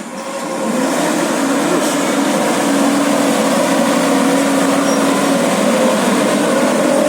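Bus telolet horn playing a 'basuri' tune: loud, pitched horn notes that step from one pitch to another, starting about a second in and holding on.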